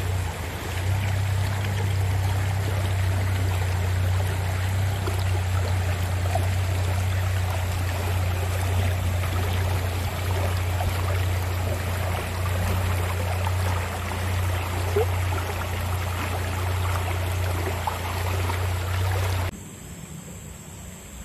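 Shallow jungle stream rushing and babbling over rocks, heard close up, with a steady low rumble underneath. Near the end the sound drops suddenly to a quieter, more distant stream.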